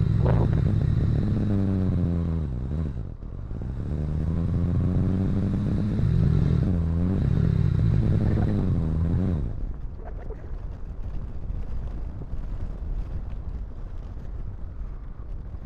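Motorcycle engine running under a varying throttle, its pitch repeatedly falling and rising, with a brief dip about three seconds in. About nine seconds in the engine note gives way to a quieter, rough rumble.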